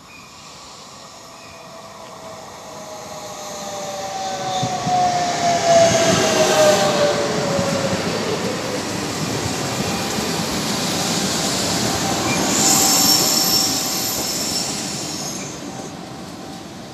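Electric regional train approaching and passing close by along a station platform. Its motor whine falls in pitch as it goes past, over the steady running of the wheels on the rails. A high squeal of wheels or brakes comes from about twelve to fifteen seconds in, and then the sound drops away near the end.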